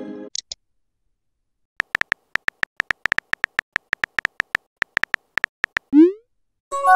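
Smartphone keyboard click sounds, a quick run of short ticks, about six a second, as a message is typed out, followed about six seconds in by a rising whoosh of the message being sent and a short electronic chime near the end. A chime is just dying away at the start.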